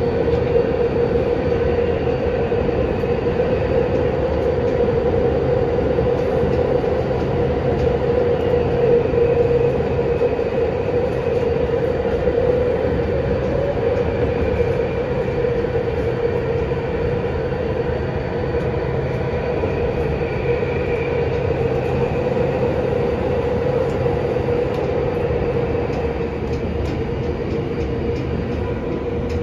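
Yokohama Minatomirai Railway Y500 series electric train running through a tunnel, heard inside the passenger car: a steady wheel-and-rail rumble that eases slightly near the end.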